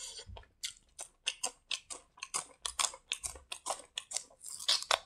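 Close-miked mouth sounds of eating: a quick run of short, wet clicks from chewing, with a louder crisp bite about four and a half seconds in as a raw green onion-type flower stalk is bitten.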